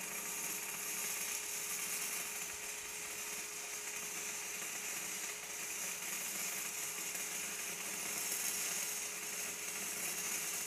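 Shielded metal arc welding with a 3/32-inch E6010 electrode at 80 A DCEP on mild steel plate: a steady, unbroken hiss and crackle of the arc. It is being held as a very short, tight arc, reading about 27 volts, the target voltage for 6010.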